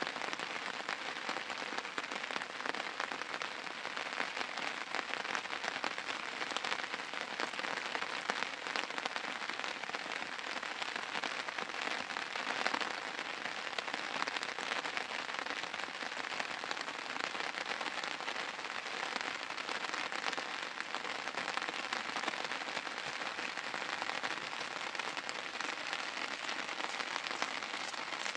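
Steady rain pattering on a surface, a dense even spatter of fine drops that neither builds nor fades.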